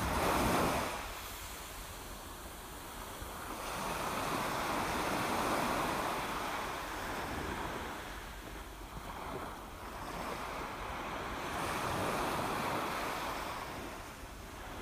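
Sea water surging and washing through a rockpool, in slow swells that rise and fall every few seconds, heard through a camera submerged in the pool.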